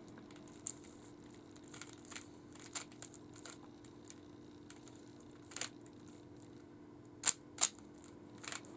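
Plastic clicks and clacks of a Rubik's cube being turned by hand, scattered and irregular, with two sharp loud clicks close together near the end. A faint steady hum runs underneath.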